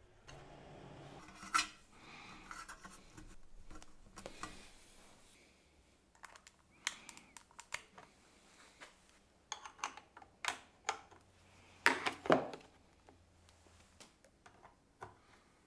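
Hands handling cables and small plastic parts: scattered clicks and rustles as a cable is pressed into clips on an aluminium rail and connectors are plugged in, with a sharp click about a second and a half in and a cluster of louder clicks near the end.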